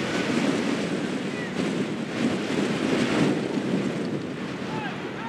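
Wind buffeting the microphone: a rushing noise that swells about two to three seconds in, with a few faint short calls over it.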